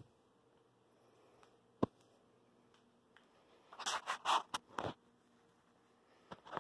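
Scratchy rustling and scraping. There is a single sharp click about two seconds in, then about a second of clustered scratchy scrapes a little past halfway, and another short scrape near the end.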